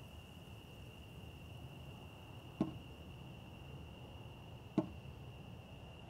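Faint night ambience: crickets trilling steadily on one high pitch over a low rumble. Two short, soft knocks sound about two seconds apart, the first a little before halfway.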